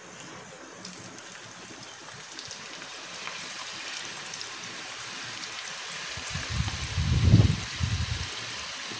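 Strips of raw jackfruit sizzling as they deep-fry in hot oil, the steady hiss setting in about a second in. A low rumbling thump around seven seconds in is the loudest sound.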